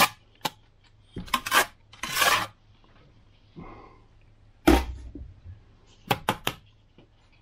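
Steel bricklaying trowel clinking and scraping against firebrick while mortar is spread on the joints: a run of sharp clinks and short scrapes, with one heavier knock a little past halfway.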